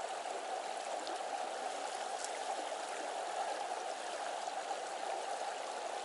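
Shallow river running over rocks in a steady rush of water.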